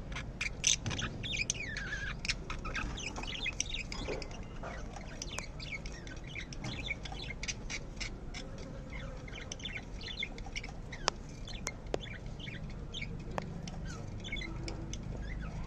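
Lovebird chirping: a continuous run of short, high chirps, mixed with sharp clicks, busiest in the first few seconds.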